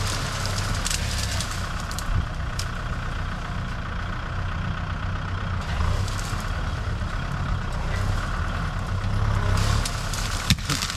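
Diesel engine of a heavy land-clearing machine running steadily with a low drone, with a sharp click near the end.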